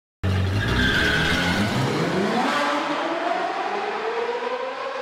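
Race car engine accelerating, its note climbing steadily for several seconds; it starts suddenly with a heavy low rumble and fades away near the end.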